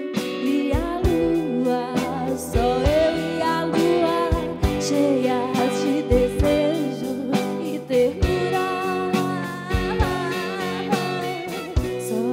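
Live band music built around guitar, with a bending melodic line over bass and regular percussive strokes, in a passage between sung verses.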